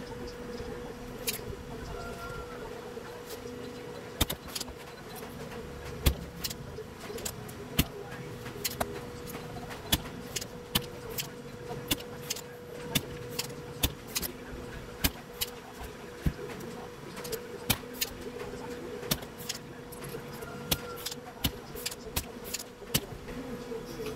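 Sharp mechanical clicks, roughly one a second and coming faster near the end, from a spring-loaded desoldering pump being cocked and snapped to suck solder off the leads of the shorted rectifier diodes. A steady hum runs underneath.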